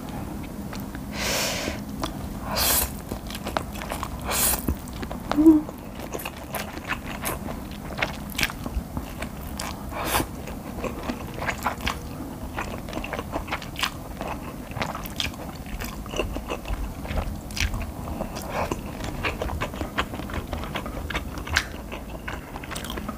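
Close-miked eating of Buldak stir-fried noodles: a few long slurps in the first five seconds, then steady chewing with many small wet mouth clicks.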